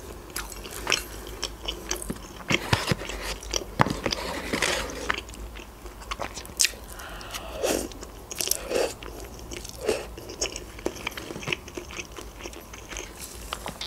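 Close-miked eating of shawarma and instant noodles: chewing with many short, wet mouth clicks and smacks.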